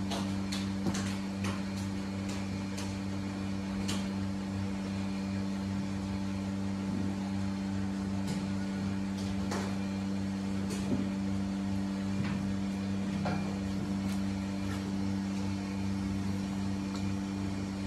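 Steady low hum of barn machinery, with scattered light clicks and knocks.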